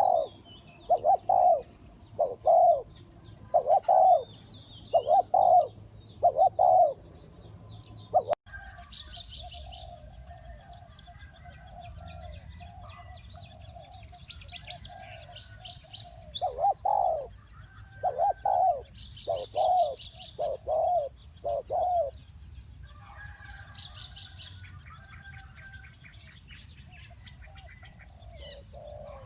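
Spotted dove cooing in runs of low, evenly spaced coos, about one a second, with faint chirps of small birds above. About a third of the way in the sound cuts suddenly, and a steady high-pitched whine runs under the second run of coos.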